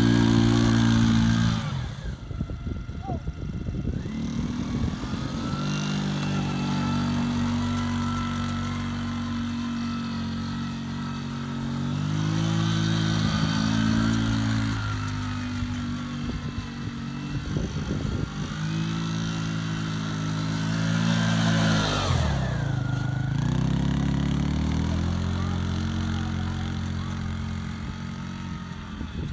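Small youth ATV engine running and revving up and down as the quad circles. The revs drop about two seconds in and fall away sharply about three-quarters of the way through before picking back up.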